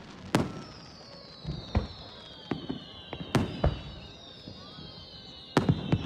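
Aerial firework shells bursting in a finale, sharp booms coming every second or so and in quick clusters of two or three, with several long high whistles falling slowly in pitch between them.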